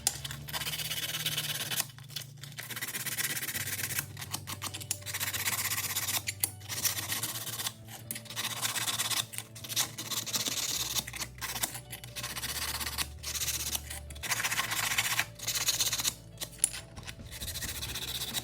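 Hand file rasping on aluminum plate in repeated strokes about a second long, with short pauses between them. Background music with a low bass line runs underneath.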